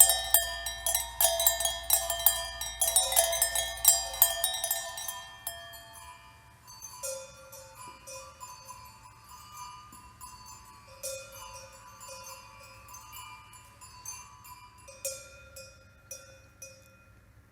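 Small metal objects struck repeatedly and ringing like bells or chimes. For the first few seconds the strikes come thick and fast, a jangling clatter. After that they thin out to scattered single strikes and short clusters, each leaving a ringing tone.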